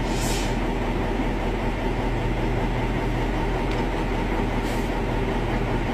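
Vehicle engine running, heard from inside the cabin as a steady low hum, with a brief hiss near the start and another about four and a half seconds in.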